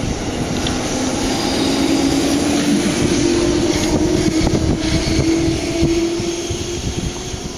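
Freight train running past: a steady rumble, with a hum that rises slightly in pitch and fades near the end.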